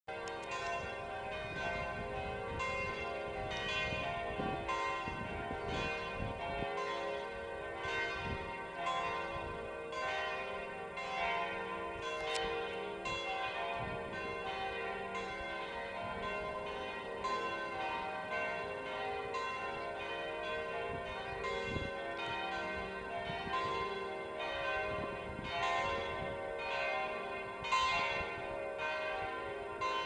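Church bells ringing a continuous peal. Several bells are struck one after another in an even rhythm, each stroke's tone ringing on under the next.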